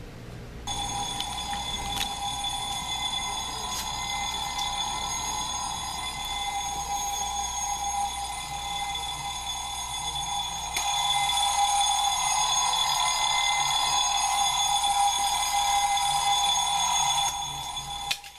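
Big Ben Moonbeam alarm clock's bell alarm ringing continuously: the bell stage that follows its gradually brightening wake-up light. It starts about a second in, gets louder partway through, and cuts off near the end.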